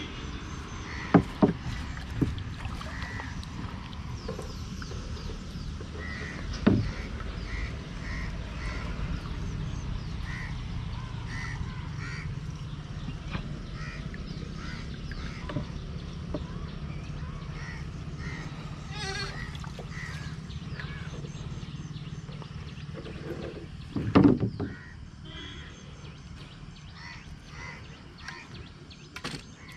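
Crows cawing over and over in the background, with a steady low hum beneath and a few sharp knocks, the loudest about 24 seconds in.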